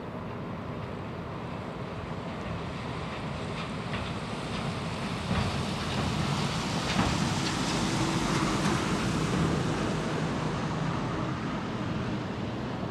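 Distant freight train running through the yard: a steady rumble that swells about five seconds in, with a few faint clicks, mixed with wind on the microphone.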